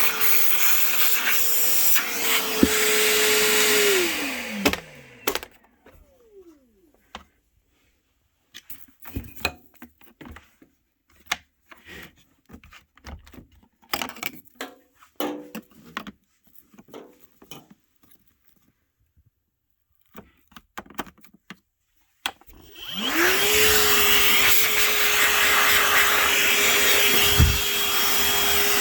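Milwaukee M12 Fuel cordless wet/dry shop vac running with a steady whine, then switched off about four seconds in, its motor spinning down. Scattered clicks and knocks follow, then the vac is switched back on near the end, its whine rising to full speed and running steadily.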